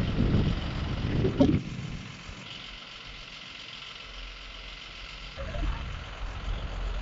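Recovery truck's engine running with a low rumble as it powers the Fassi loader crane lifting the car, over a steady hiss. A short knock comes about a second and a half in, then the engine rumble drops away abruptly and comes back near the end.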